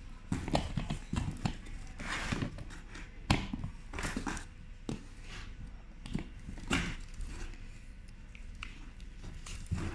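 Irregular plastic clicks and knocks of scanner battery modules being pushed into and lifted from a row of linked charging cradles, then of the glove scanner being handled; the loudest knock comes about three seconds in.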